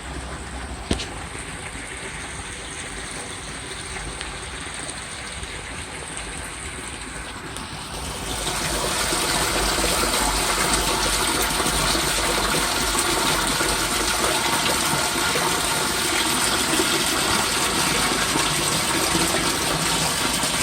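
Water rushing as a French drain sump pump runs, pumping out the pit. A single click comes about a second in, and about eight seconds in the rush turns louder and fuller, then holds steady.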